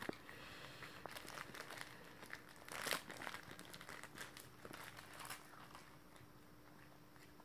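Plastic biscuit wrapper crinkling faintly as a dog noses at the packet: a string of small crackles, with one louder rustle about three seconds in.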